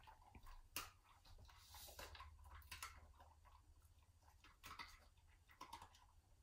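Faint crunching and chewing in irregular small clicks: huskies eating dog treats.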